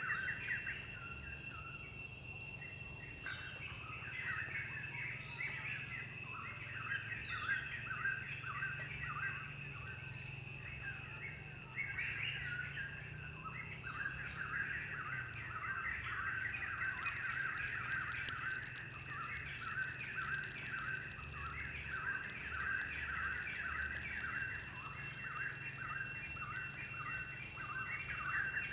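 Birds chirping in quick, busy calls, with a steady high-pitched hum underneath.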